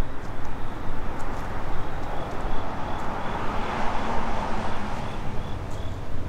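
Wind buffeting the microphone with a low rumble, while a distant vehicle's noise swells and fades around the middle. A faint high chirp repeats about twice a second.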